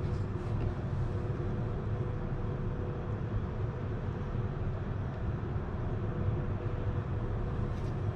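Steady low rumbling background noise with a faint steady hum above it, and a few faint light ticks near the start and near the end.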